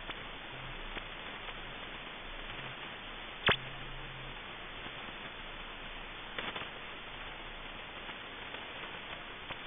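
Shortwave receiver static hiss at 5000 kHz, with one sharp click about three and a half seconds in and a fainter double click later: the swept signal of an ionospheric sounder passing through the tuned frequency.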